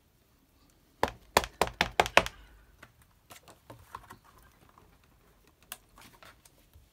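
Hands handling a magnetic rubber-stamping platform. About a second in comes a quick run of about seven sharp clacks as pieces and a magnet are set down on it, then scattered softer ticks and one more click later on.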